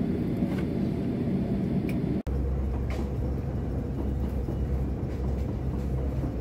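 Steady low rumble inside an airliner cabin parked at the gate, broken off abruptly about two seconds in; a different steady low hum of an airport terminal follows, with a few faint ticks.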